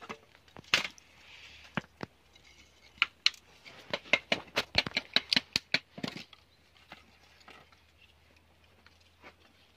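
Dry kindling wood being handled and cut with a knife: a run of sharp wooden clicks and knocks, quickest in the middle at about three or four a second, then thinning out.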